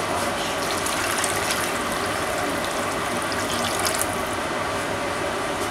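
Water poured from a glass measuring cup into a hot roasting pan around a seared beef roast, crackling and sizzling as it hits the pan drippings, over a steady hiss. The crackling stops about four seconds in.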